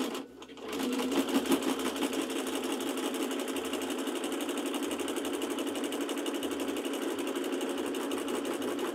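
Home sewing machine stitching fast and steadily in a wide zigzag stitch, free-motion, with the needle hammering rapidly and evenly; it picks up again after a brief pause about half a second in.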